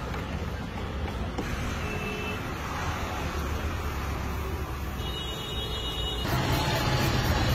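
Street background noise: a steady low rumble of road traffic, getting louder about six seconds in, with a few faint, brief high tones.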